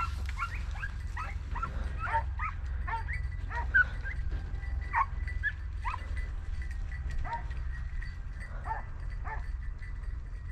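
Rabbit-hunting dog yelping and whimpering in quick, high yelps, thick and fast at first and thinning out in the second half, over a steady low rumble.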